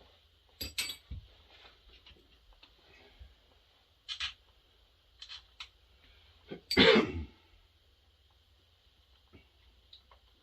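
Chainsaw parts and tools handled on a workbench: a few scattered clicks and knocks, the loudest about seven seconds in, over a faint steady hum.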